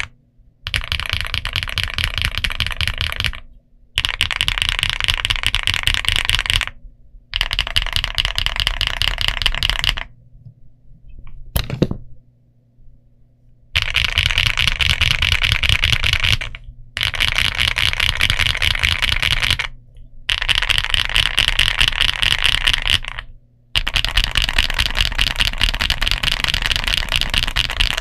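Fast typing on a Weikav Record V2 mechanical keyboard fitted with MZ Studio Z1 switches and Domikey Semiconductor keycaps: dense runs of keystrokes, each a few seconds long, broken by short pauses. A longer pause about ten seconds in holds a single click.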